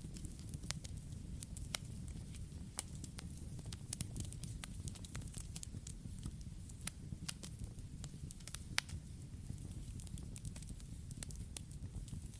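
Campfire crackling: a steady low rumble of burning with frequent irregular sharp pops and snaps, one louder pop about nine seconds in.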